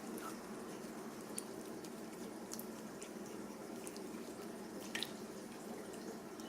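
Jello-like slime being kneaded and mixed by hand, giving faint wet clicks and drip-like squelches every second or so.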